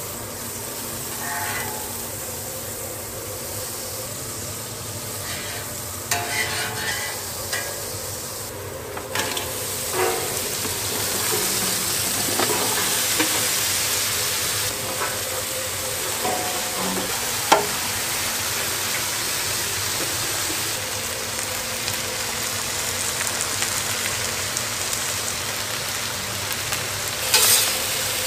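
Melted butter and then sliced onions sizzling on a hot flat-top griddle, a steady frying hiss. Occasional clicks and scrapes of a metal spatula working the onions, loudest near the end.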